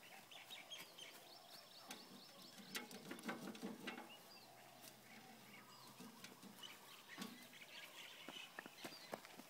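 Faint birds chirping, with scattered light taps and rustles close by.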